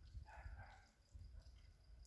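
A single faint animal call about half a second in, over a low rumble.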